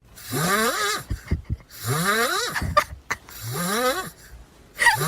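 A cat yowling: four drawn-out calls, each rising in pitch over about a second, coming about every second and a half.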